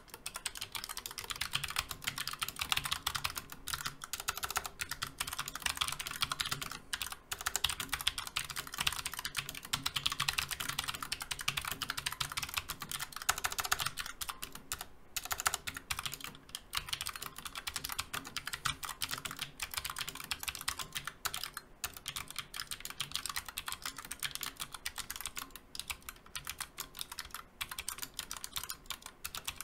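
Fast continuous typing on a low-profile mechanical keyboard with Outemu Blue low-profile clicky switches, each keystroke giving a click on press and on release, with an audible ping.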